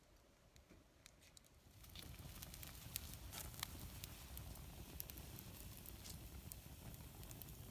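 Wood fire crackling: scattered sharp pops and snaps over a low steady rush, coming up about two seconds in.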